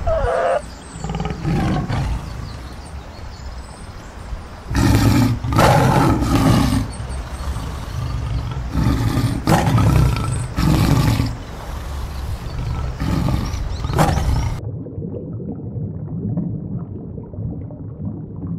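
Tiger roaring and growling, a run of loud roars with short pauses between them. Near the end the roaring cuts off and only a quieter low rumble remains.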